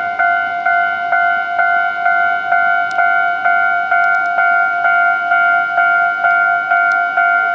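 Japanese railway level-crossing warning bell ringing steadily at about two strikes a second, each a clear ringing tone: the crossing's alarm, sounding while a train is passing or approaching.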